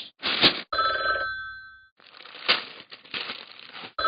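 A telephone ringing: one ring of about a second, then a stretch of crackly hiss, then the next ring starting near the end, with a short burst of hiss before the first ring.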